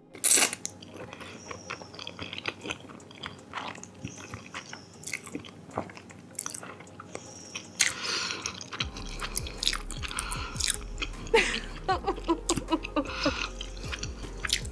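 Close-miked eating sounds: irregular chewing and biting with wet mouth noises and small clicks. The first part is grilled eel and rice eaten with chopsticks; from about 9 s in, it is spaghetti and meatballs eaten from a fork.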